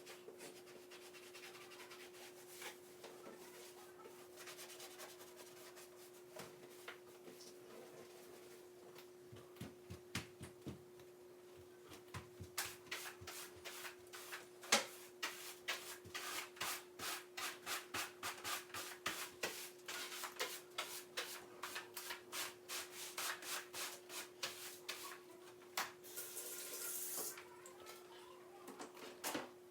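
Repeated quick rubbing or scraping strokes, a few per second, starting about a third of the way in and stopping near the end, over a faint steady hum.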